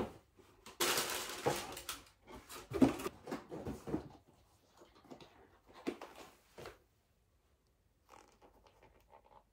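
Tissue paper rustling and a cardboard shoe box being handled as a platform shoe is unpacked, with a sharp knock at the start and a few more knocks and bumps over the next several seconds.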